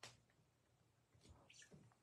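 Near silence: a faint tap as a stack of trading cards is set down on a tabletop mat, then faint handling sounds near the end.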